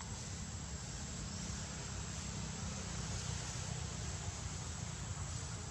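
Steady outdoor background noise: a low rumble under an even hiss, with a faint steady high whine and no distinct events.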